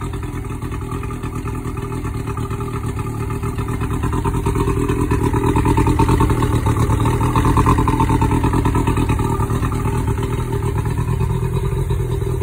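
Evinrude 60 hp two-stroke outboard motor running with its cowling off. The revs rise after a few seconds, then ease back a little toward the end.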